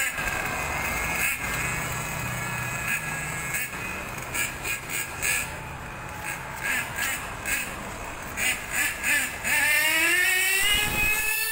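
Street noise with a motor vehicle's sound, and a motor rising in pitch near the end as it speeds up.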